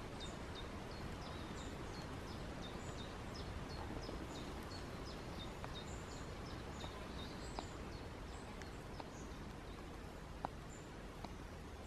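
Woodland ambience: small birds calling with many short, high, falling chirps through the first two-thirds, over a steady background hiss. A few sharp clicks come later, the loudest about ten seconds in.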